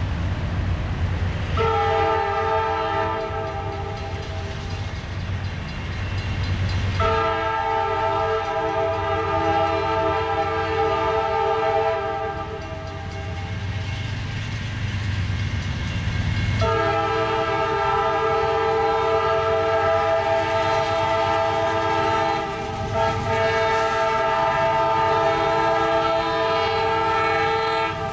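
A CSX GE wide-cab diesel freight locomotive sounds its multi-note air horn in long blasts as it approaches, over the steady low rumble of its diesel engine.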